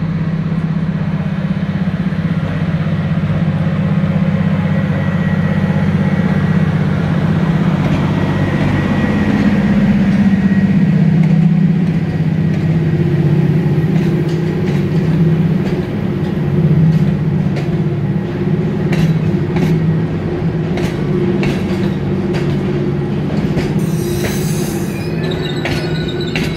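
Electric locomotive and passenger coaches passing close by: a steady low hum, then the coaches rolling past with regular wheel clicks over the rail joints and a faint wheel squeal.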